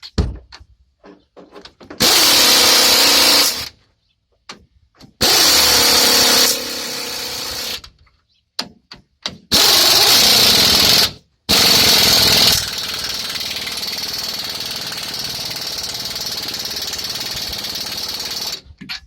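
Impact wrench hammering on nuts of a truck rear axle, tightening them down: several loud bursts of a second or two with short pauses between, then a steadier, quieter run lasting about six seconds.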